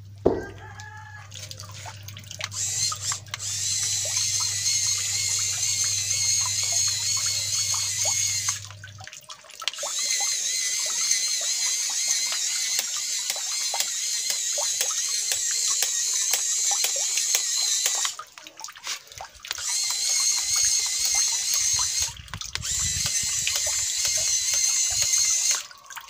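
Small DC gear motors of a homemade RC row boat whining as they work its oars, wavering slightly in pitch. They stop and start again three times, with light splashing from the oars in the water.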